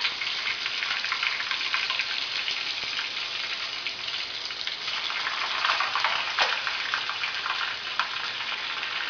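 Hot cooking oil sizzling and crackling steadily as oyster mushrooms deep-fry in it. The loud spitting comes from wet mushrooms going into oil that is a bit too hot.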